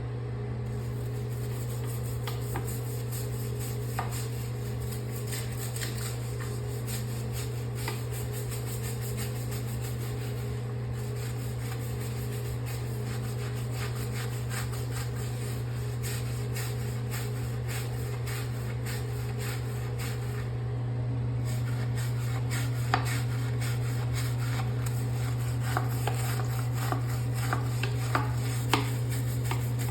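A toilet bowl being scrubbed, with repeated rubbing and scraping strokes and a few light knocks, busier in the second half. A steady low hum runs underneath throughout.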